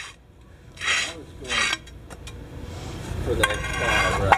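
Wood-look tile plank scraping as it is slid out of its stack and across a concrete floor: two short scrapes about a second in, then a longer scrape near the end.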